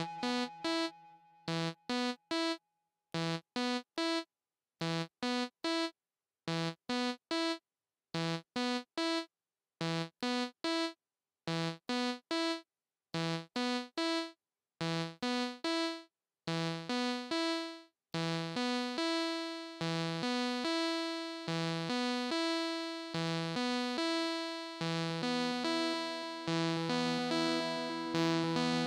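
Korg Volca Keys analog synthesizer playing a looping sequence of short, clipped notes with silence between them. About 18 seconds in, as its knobs are turned, the notes lengthen and run together into a continuous pattern.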